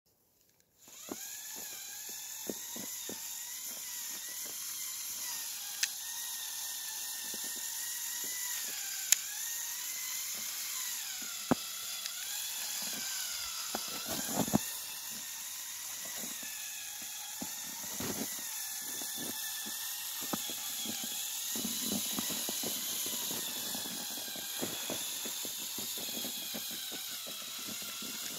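Electric motors of a remote-controlled Lego Technic articulated tractor chassis whining as it drives in snow, starting about a second in, the pitch wavering up and down with the load. Scattered sharp clicks and knocks sound over the whine.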